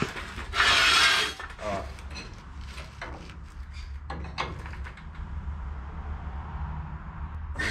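A steel floor jack and jack stands being handled under a car as it is let down: a loud scraping clatter of metal about a second in, then scattered metal clicks and knocks over a low steady hum.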